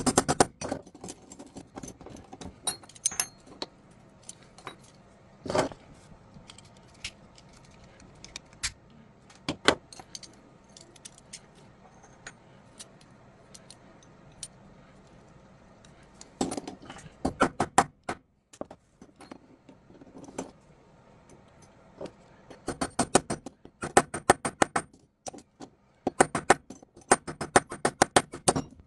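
Small metal parts clicking and clinking as a hand tool is handled and worked, with scattered single clicks and quick runs of several clicks a second near the middle and twice near the end.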